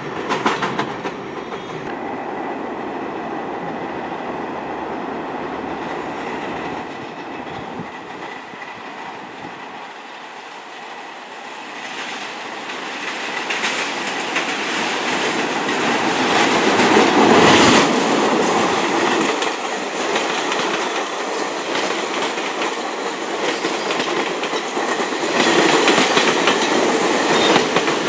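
New York subway train of R68-series cars rolling in over switches, wheels clattering over rail joints, growing louder to a peak about halfway through. Near the end a second train rushes past close by, clattering loudly.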